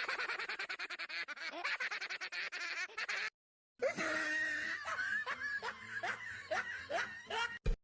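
Two laughing sound effects, one after the other, with a brief silence between them: first a rapid, stuttering snicker, then a second laugh of repeated pitched 'ha' sounds.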